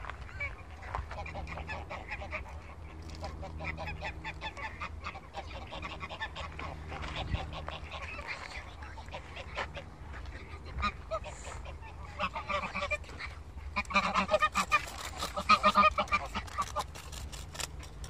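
A flock of white domestic geese honking and calling over one another in short, repeated calls, with a louder run of honking about three-quarters of the way through.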